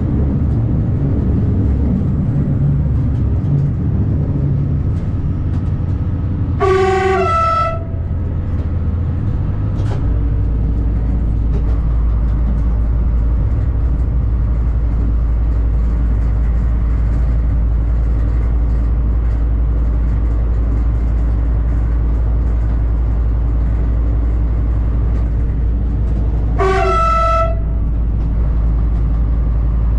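Diesel railcar's horn sounding twice, about twenty seconds apart, each blast about a second long, stepping from a low note to a higher one. Underneath is the steady running of the railcar's engine and wheels on the track, its low note shifting about ten seconds in.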